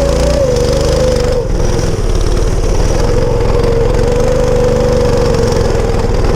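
Drifta go-kart's small engine, its governor removed, running steadily with a strong held pitch that wavers a little.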